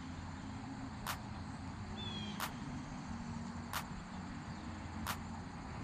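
Four sharp ticks evenly spaced about 1.3 seconds apart, with a short high chirp about two seconds in, over a steady low rumble.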